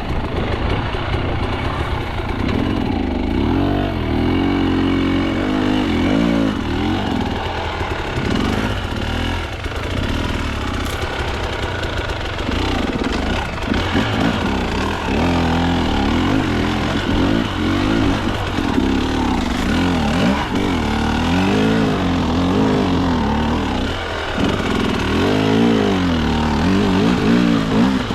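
KTM two-stroke dirt bike engine revving up and down again and again as the throttle is worked on and off.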